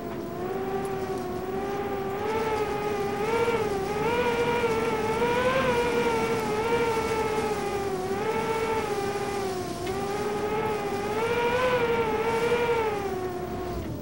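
An engine running hard at high revs, its pitch wavering slowly up and down, then dropping away near the end.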